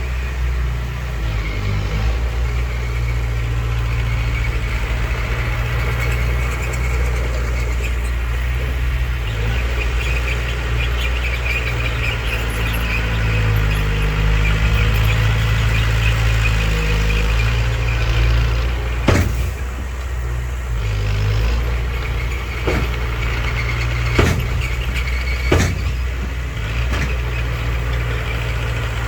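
Heavy diesel earthmoving machinery, a bulldozer and dump trucks, running steadily with a deep engine drone. Three sharp knocks come in the second half.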